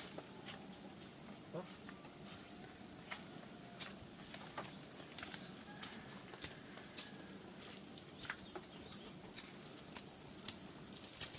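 A steady, high-pitched chorus of insects droning without a break, with scattered faint clicks and knocks now and then.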